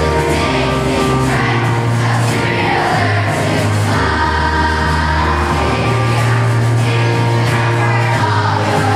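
A large children's choir singing a song in unison, accompanied by strummed acoustic guitars, over held bass notes that change every second or two.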